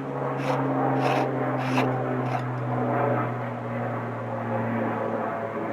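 Steady low engine drone, its pitch sinking slightly midway, with a few faint scrapes in the first two seconds.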